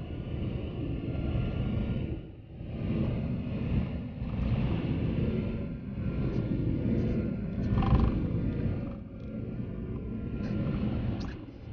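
Car driving on a wet, snow-covered road, heard from inside the cabin: a steady low rumble of tyres and engine that swells and dips every two to three seconds, with a brief louder bump about eight seconds in.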